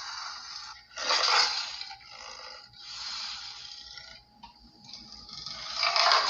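Snarling sound effect: harsh, raspy creature snarls in a few bursts, the first starting suddenly about a second in and a louder one swelling near the end.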